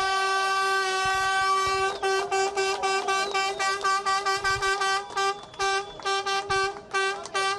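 Handheld air horn sounding the start signal for the race. It gives one long held blast, then about two seconds in breaks into rapid short blasts, roughly three a second.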